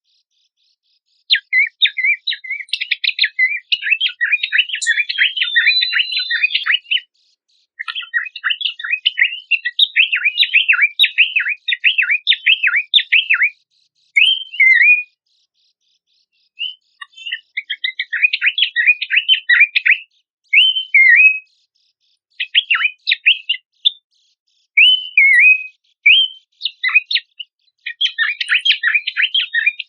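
Horsfield's babbler (pelanduk semak) song as a tutoring recording: short falling whistled notes alternating with long runs of fast, varied chattering notes, broken by clean silent pauses.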